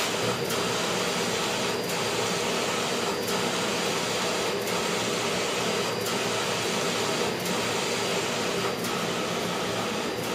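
Wide-format inkjet printer printing a sublimation transfer, its print-head carriage sweeping back and forth with a steady mechanical whir. A short click comes about every second and a half.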